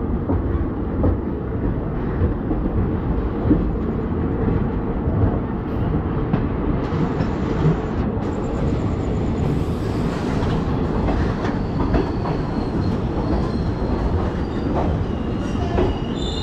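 Hussain Sagar Express passenger train running on the track: a steady rumble of wheels on rails with irregular knocks and clatter.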